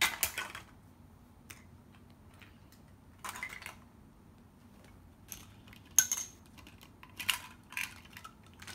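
Plastic toy food pieces clattering and clicking against each other and a plastic basket as they are rummaged through, in scattered short bursts with the sharpest knock about six seconds in.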